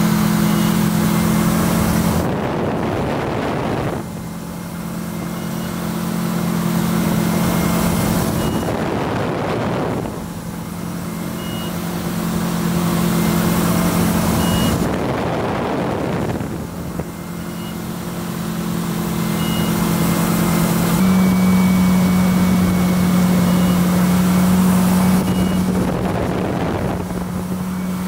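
Tow boat's engine running steadily at slalom towing speed, its pitch stepping up slightly near the end, with the rush of wake and spray swelling and fading every few seconds.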